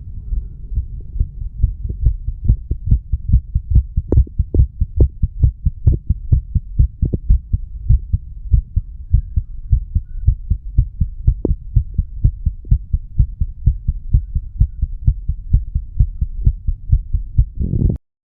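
Human heartbeat recorded against the chest at the mitral valve area: a steady, regular run of low lub-dub thumps that cuts off abruptly near the end. The heart is under the influence of nicotine and cannabis, which the owner hears as a little change in rate and sound.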